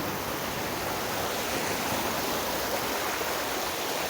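Shallow forest stream flowing and splashing over stones, a steady rushing.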